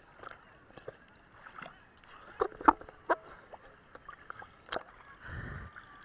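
Sea water slapping and sloshing against a waterproof action camera held at the surface, with several sharp knocks in the middle and a low, muffled rush about five seconds in as a wave washes over it.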